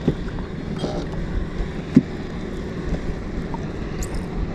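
Wind buffeting the microphone and choppy lake water lapping against a small fishing boat's hull, with one sharp knock about two seconds in.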